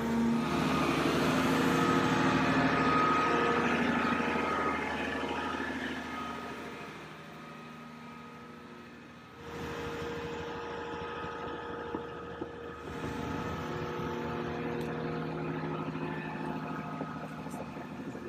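Volvo 360 tracked excavator's diesel engine running steadily while the boom and bucket work. It fades somewhat in the middle and comes back louder about nine seconds in.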